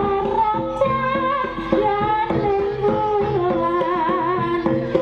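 Live East Javanese jaranan gamelan music: a sustained, wavering melody line slides between held notes over repeated drum strokes.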